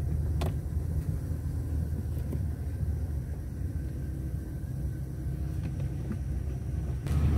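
Car driving on a dirt road, heard from inside the cabin: a steady low rumble of engine and tyres, with a faint knock about half a second in. A louder hiss comes in near the end.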